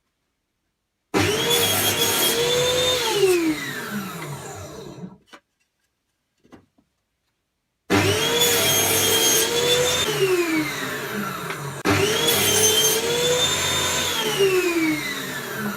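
Electric drill rigged as a homemade sander, started in three short runs: each time the motor whine jumps up at once, holds steady, then falls in pitch as it coasts down. The third start comes while the second run is still spinning down.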